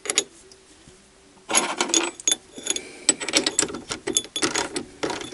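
Metal clinks and rattles of a short hexagon bar being handled and set against the jaws of a lathe chuck. There is a burst of clattering about a second and a half in, then scattered clicks.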